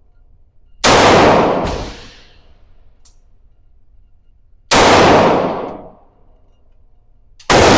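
Gunshots at a shooting range: three loud single shots, about a second in, near the middle and near the end, each ringing out for about a second, with a fainter shot shortly after the first.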